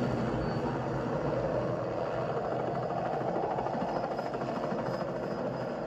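Helicopter in flight, its rotor chop and engine running steadily as it flies away over the water.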